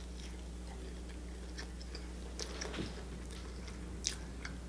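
A person chewing a mouthful of creamy pasta and panko-breaded vegan chicken, with faint scattered short mouth clicks, over a steady low electrical hum.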